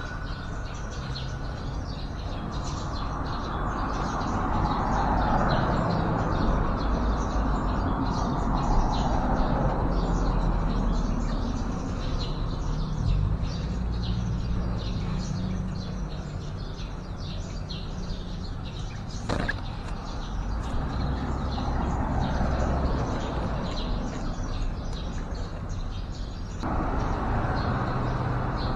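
Many short bird chirps over a steady low rumble and slowly swelling background noise. The background changes abruptly near the end.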